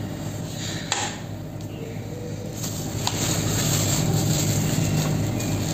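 A steady low drone in the background, with two sharp light clicks, about one second in and about three seconds in, likely a pointed clay-modelling tool knocking against a plastic lid.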